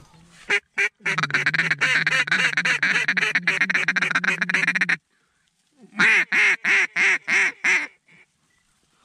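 Hand-blown duck call: a fast, steady chatter of short notes for about four seconds, then, after a pause, a string of about six evenly spaced quacks.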